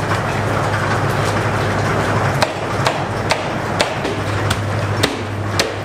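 Metal shovels and scrapers scraping through and smashing a hardened sheet of sugar-roasted coffee beans on a stainless steel workbench. The scraping gives way about halfway to sharp knocks about twice a second, over a steady machine hum.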